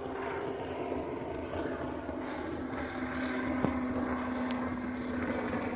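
Jet ski engine running at speed as it passes across the river, a steady hum that grows a little louder about halfway through.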